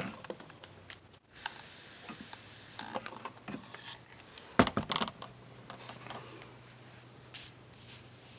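Handling noise from a phone being moved by hand: rustling and scattered clicks, a hiss about a second and a half in, and one sharp knock about four and a half seconds in, over a faint steady hum.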